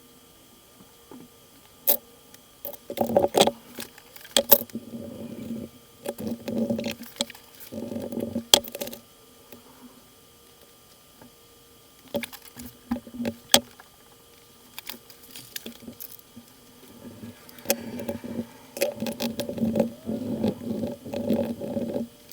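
Sped-up workbench handling of a floppy drive mechanism: many sharp clicks and taps of small metal and plastic parts, between short patches of rubbing and wiping, as the mechanics are cleaned with WD-40.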